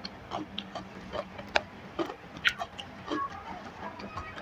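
Close-up eating sounds: scattered soft clicks and small wet smacks of a person eating rice and curry by hand and chewing, about one or two a second.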